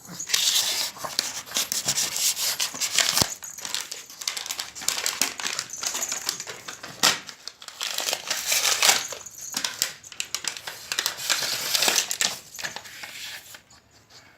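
Irregular crunching and crinkling, dense with sharp clicks, that stops shortly before the end.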